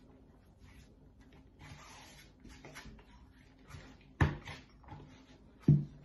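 Yeast bread dough being kneaded by hand in a large bowl: soft rubbing and squishing of the dough, then two heavy thumps, one about four seconds in and another near the end, as the dough is pressed and slapped down into the bowl.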